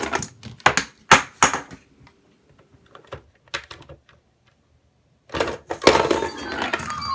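Fisher-Price Gumball Play Machine toy clattering: plastic gumballs clicking sharply against the plastic chute and door in quick runs. After a short pause, about five seconds in, a longer, denser rattle starts, with a faint thin tone near the end.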